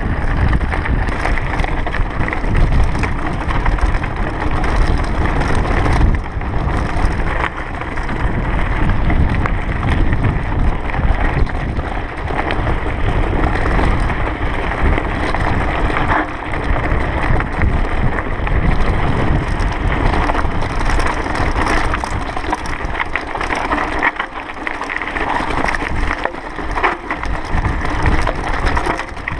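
Mountain bike rolling down rocky, loose singletrack: tyres crunching over stones and gravel, with a steady run of rattles and knocks from the bike over the rough ground.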